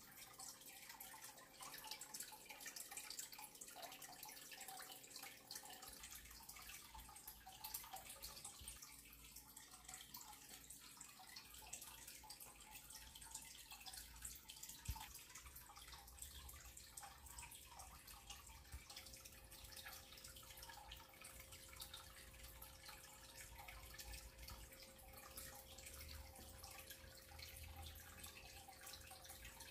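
Near silence: faint room tone with soft, irregular dripping ticks.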